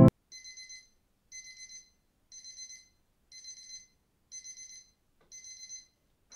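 Electronic alarm clock beeping, a wake-up alarm: short groups of about four quick, high-pitched beeps, one group each second.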